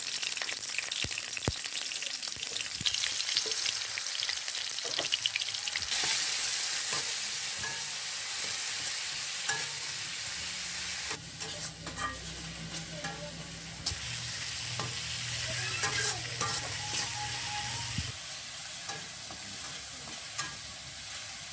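Ground spice paste sizzling in hot oil as it is stir-fried until fragrant, a steady high sizzle with the short scrapes and clicks of a spatula stirring against the pan.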